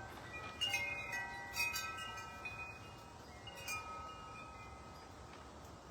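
Wind chimes ringing, several metal tones struck and left to ring on, with louder clusters of strikes about a second in, near the middle, and again a little later.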